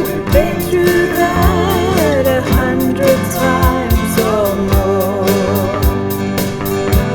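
Band playing a slow country-folk song, with a steady drum beat under a wavering lead melody.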